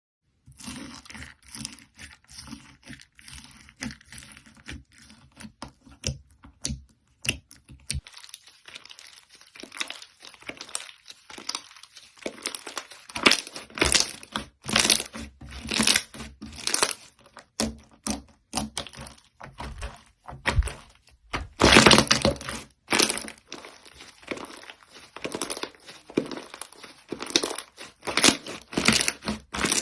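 Slime being squeezed, stretched and poked by hand: a dense, irregular run of short sticky pops and crackles, with the loudest squishes in the middle and second half.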